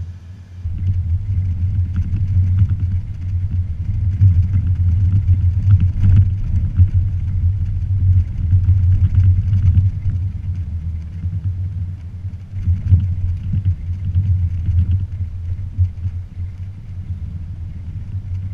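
2016 Toyota Tacoma TRD Off-Road pickup driving: a loud, uneven low rumble that rises sharply about half a second in and keeps going.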